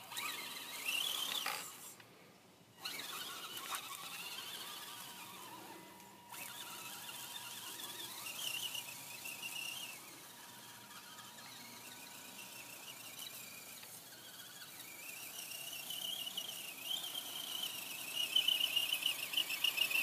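Electric motor and gearbox of an RC rock crawler whining as it tows a second RC truck over grass, the pitch rising and falling with the throttle and dropping out briefly about two seconds in.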